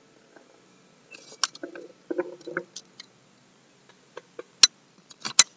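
Handling noise from the camera being picked up and turned round on a table: scattered small clicks, knocks and rustling, with two sharp clicks near the end.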